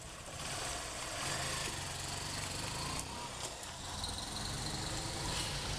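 Motorcycle engine running with a low, steady rumble, fairly faint.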